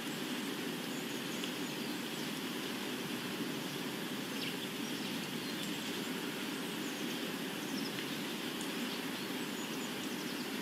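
Steady ambient nature soundscape: an even rushing background with faint, scattered bird chirps.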